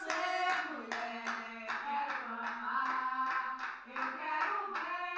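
Several people clapping in steady time, about two and a half claps a second, with women's voices singing along over the claps.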